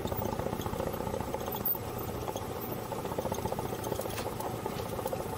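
Cessna 172's single piston engine running steadily at low power during the landing rollout, heard from inside the cockpit.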